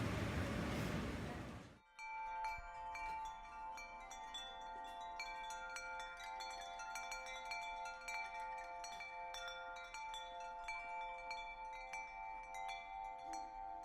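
Broad wind or road noise that cuts off sharply about two seconds in, followed by chimes ringing: many light, irregular strikes over several steady, overlapping tones.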